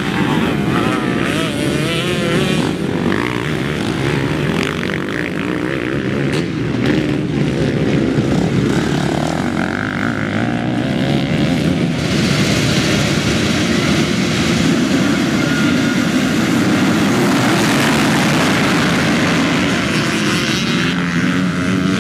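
Motocross bikes on a dirt track: single bikes revving past with their pitch rising and falling, then from about halfway a full field of motocross bikes revving together at the start line, a dense, steady mass of engine noise.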